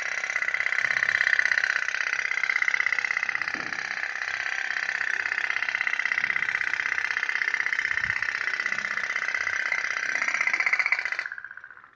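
Tin pop-pop toy steam boat running: its little boiler gives a fast, even putt-putt rattle that carries on steadily and then dies away near the end.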